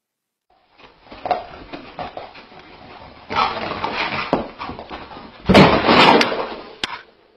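Pets play-fighting on carpet: irregular scuffling and thumping, with two louder noisy bursts, the loudest about five and a half seconds in.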